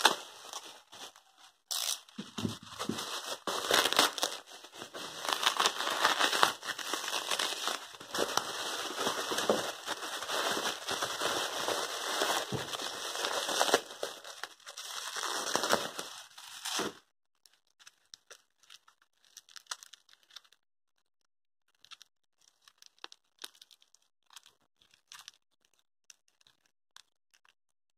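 Bubble wrap crinkling and crackling as it is slit with a utility knife and pulled apart by hand. The dense rustling stops abruptly a little after halfway, leaving only faint scattered crinkles.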